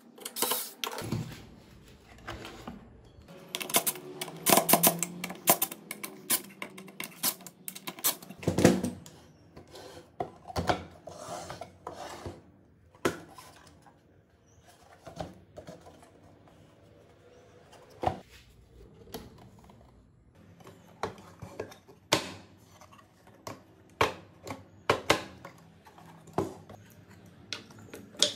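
Irregular knocks, clicks and rubbing of plywood and small metal parts being handled: a hinged plywood box being moved and closed, and parts fitted and set down on a cutting mat.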